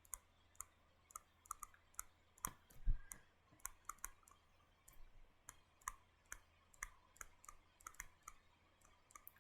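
Faint, irregular light clicks and taps of a stylus on a tablet screen during handwriting, a few a second, with one slightly heavier tap about three seconds in.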